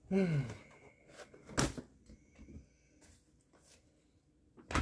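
A brief voiced murmur, then small objects handled and set down on a work surface, with two sharp knocks: one about a second and a half in and a louder one near the end.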